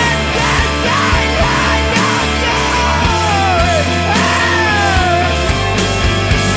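Loud rock music from a band recording, dense and steady, with a high melodic line that slides down in pitch several times.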